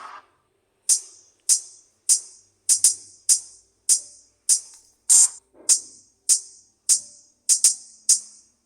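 Water splashing in a quick, fairly regular series of short hissing splashes, about two a second, a few coming in close pairs.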